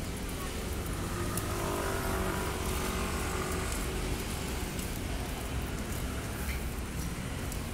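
Street traffic: a car's engine running, over a steady low rumble.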